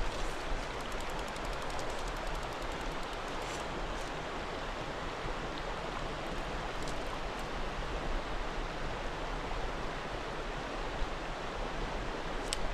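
Creek water rushing steadily over rocks. A fast run of faint, evenly spaced ticks starts about half a second in and lasts about three seconds, with a few single clicks later.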